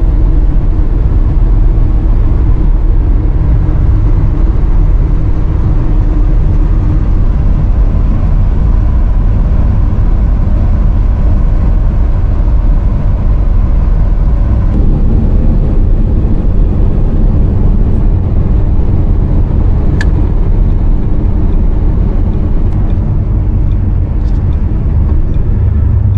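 1973 GMC C2500 pickup driving at road speed, heard from inside the cab: steady engine drone and road noise. The tone of the drone shifts about halfway through, and there is one short click near the three-quarter mark.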